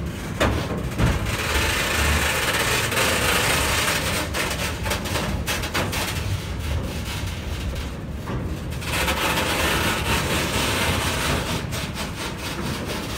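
Freight train of tank cars rolling slowly past on the rails: a steady rumble and rolling hiss of the wheels, with sharp knocks about half a second and a second in.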